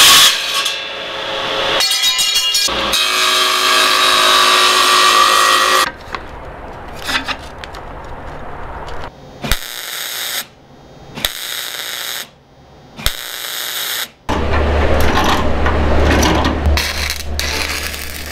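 A table saw cutting aluminum plate: loud cutting noise with a ringing whine through the cut, lasting about six seconds. Then a MIG welder's arc crackles in three short bursts of a second or so each, and from about two-thirds of the way in it runs steadily with a low hum under the crackle.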